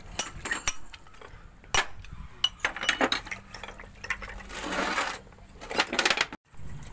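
Metal clinks and knocks of steel differential parts and tools being handled during a teardown, with a brief hiss about two-thirds of the way in.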